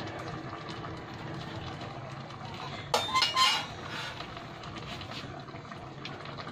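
Metal spoon set down in a stainless steel bowl: a short ringing clank about three seconds in, over steady low background noise.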